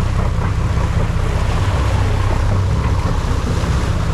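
Boat engine running steadily in reverse while backing down, a low even hum, with water churning along the hull and wind noise over it.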